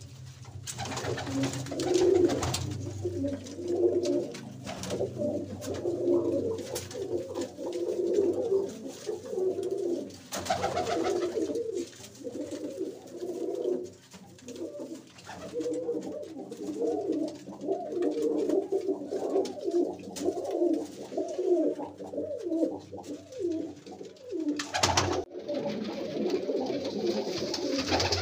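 Several domestic pigeons cooing over one another without pause, low and wavering. A few faint clicks, and one short louder noise near the end.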